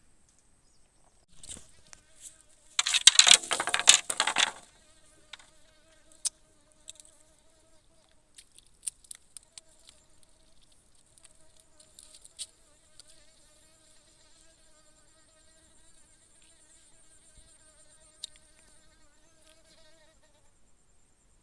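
Flying insect buzzing close to the microphone, a wavering drone that breaks off for a couple of seconds and comes back. A loud, rough rustling burst comes about three seconds in, before the buzzing starts.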